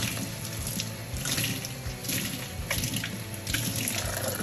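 Water running and splashing, with irregular short, sharper splashes, as the grill is washed.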